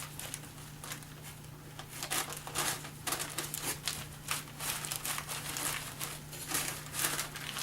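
Irregular soft crinkling and tearing as fingers pull the inside dough out of a sub roll, the strokes coming thicker from about two seconds in.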